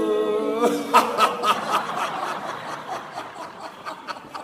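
A man holds a long 'eu' sound while squeezing his pelvic floor muscles. About half a second in it breaks off into rapid, rhythmic laughter that trails away: a laughter-therapy laugh that ends the squeeze.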